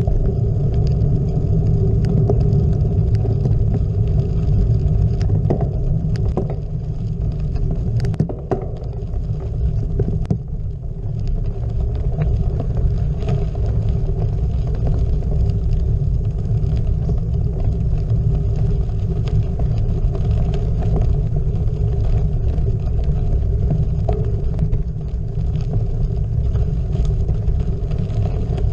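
Gravel bike rolling down a gravel road: a steady low rumble of tyres on gravel and wind on the GoPro microphone, with a few sharp clicks of stones or bike rattle about eight and ten seconds in.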